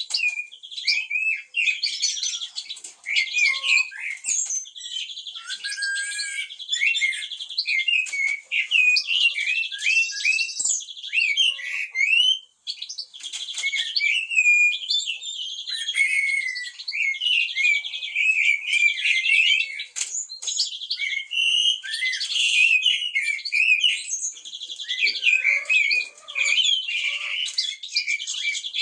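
Several songbirds singing and chirping at once in a dense, unbroken chorus of quick high chirps, whistled glides and rapid trills.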